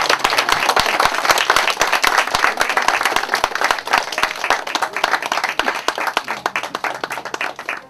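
Audience applauding: a dense spread of many hands clapping, thinning out and dying away near the end.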